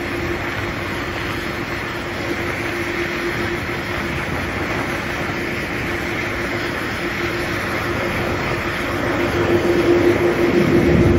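Boeing 747-400ERF's four jet engines running: a steady rumble with a held hum, growing louder over the last couple of seconds.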